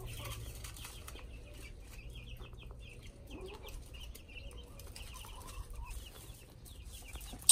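Hens clucking softly while they feed, over a run of quick high-pitched bird chirps, with a sharp click at the very end.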